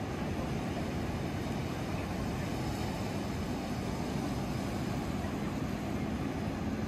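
Steady low rumble of wind and surf along the beach, with no distinct events.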